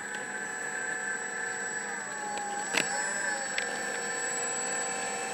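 Motor and propeller of a radio-controlled Piper Pacer model running at low throttle while taxiing, its pitch dipping and rising once in the middle. A single sharp click about three seconds in.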